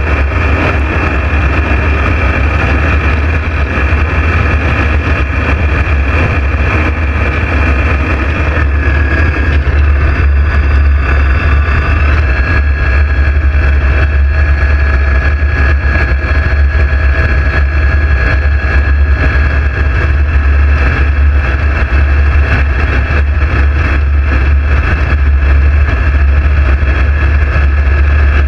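A light aircraft's engine and propeller running steadily in flight, a loud constant drone. Its higher whine shifts slightly in pitch about 9 and 12 seconds in.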